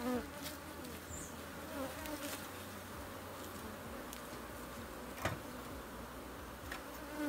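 Africanized honey bees buzzing in a steady drone, with a single sharp tap about five seconds in.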